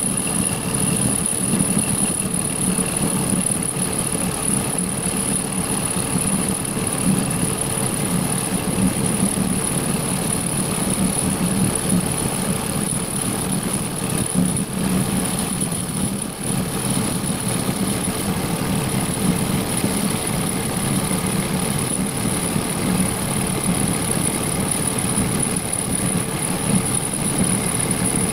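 Mini lathe running steadily through a milling cut with a milling attachment: an even machine hum with a thin high-pitched whine over it.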